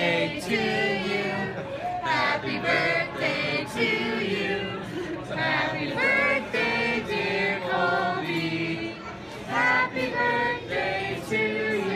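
A group of people singing a birthday song together, men's and women's voices, with held notes.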